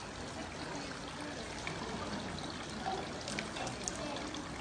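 Water pouring and trickling at a temple purification fountain as hands are rinsed with a wooden ladle, steady throughout.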